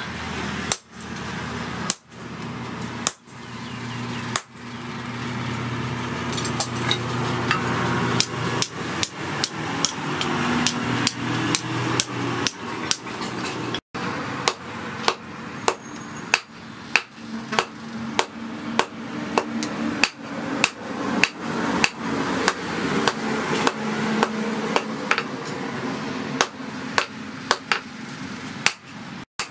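Hand hammer striking steel on a steel post anvil: sharp blows, a few spaced about a second apart at first, then a quicker steady rhythm of about one and a half blows a second as red-hot steel is forged into a knife blade. A steady low hum runs underneath.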